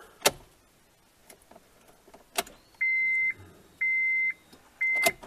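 A few sharp clicks of the ignition key being turned to on in a Honda CR-V. A little under three seconds in, a steady high dashboard chime starts beeping in half-second tones about once a second: the unfastened seatbelt reminder.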